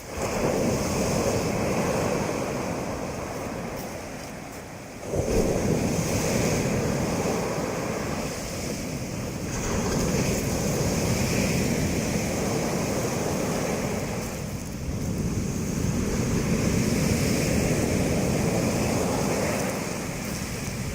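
Sea waves breaking on a pebble beach. A sudden crash at the start and another about five seconds in, then longer surges that swell and ebb.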